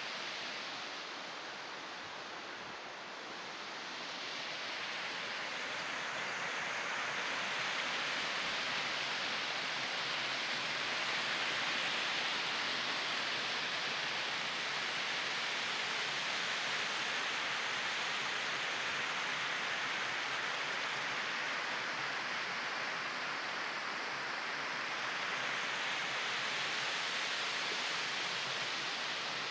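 Water rushing over a small stone weir and sluice into a pond: a steady rush with no pauses, growing louder about six seconds in.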